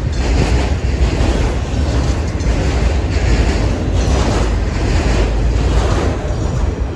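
Freight train rolling past: a steady, loud rumble of its cars on the rails.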